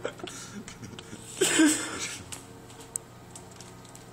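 Riding lawnmower engine running steadily in the distance, heard as a low hum under scattered clicks and rustles of the phone being handled. A short loud rush of noise comes about one and a half seconds in.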